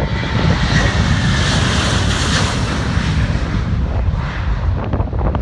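Jet airliner's engines passing close by: a rushing, whining jet noise swells to a peak about two seconds in and fades. Underneath runs a steady heavy low rumble.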